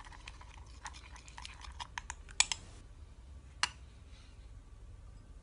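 A spoon clinking and scraping against a small bowl while an egg yolk, honey and olive oil face mask is stirred into a smooth paste. Irregular light clicks, two sharper ones around the middle, then fewer.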